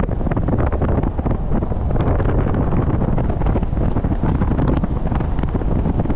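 Wind buffeting the microphone, a loud steady rumble with constant gusty crackle.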